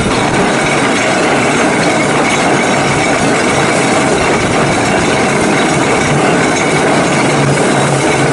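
Pulley wheels of a hand-pulled gondola running along its ropes: a loud, steady mechanical rattle.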